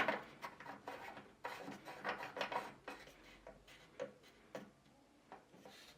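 Small E14 oven light bulb being screwed by hand into its lamp holder: a click at the start, then faint, irregular scraping and ticking of the bulb's thread turning in the socket, which dies away after about four seconds.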